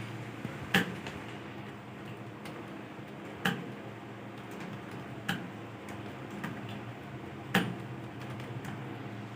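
Computer keyboard keystrokes clicking sparsely in a room: four louder, sharp key strikes spaced one to three seconds apart, with fainter ticks between, over a steady background hum.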